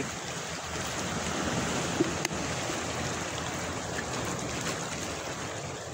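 Small sea waves lapping and washing against shore rocks, a steady wash, with one sharp click about two seconds in.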